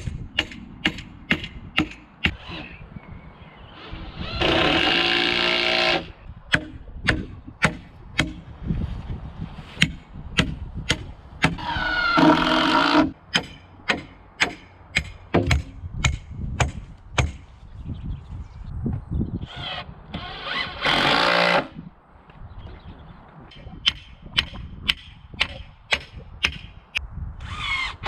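Power drill driving screws into timber in four bursts of a second or so. Between them comes a regular run of sharp knocks, about two a second.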